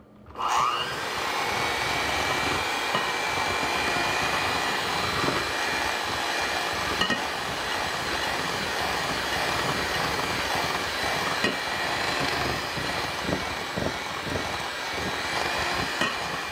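Electric hand mixer switched on and running steadily, its beaters churning butter, cream cheese and powdered sugar in a glass bowl.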